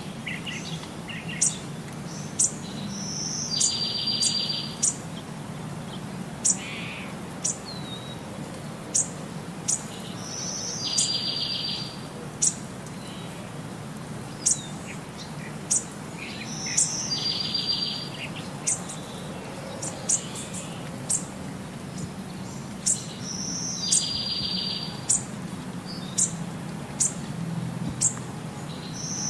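Birdsong playing on a loop: short high chirps about once a second, with a buzzy trill that repeats every six or seven seconds.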